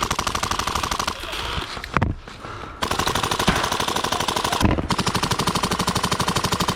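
Airsoft electric guns firing on full auto in long rapid strings of evenly spaced shots, with a short lull about two seconds in. Low thumps come about two seconds in and again near the five-second mark.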